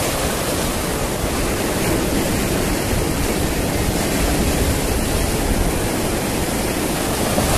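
Sea surf breaking and washing over the rocks of a boulder seawall, a steady rushing noise.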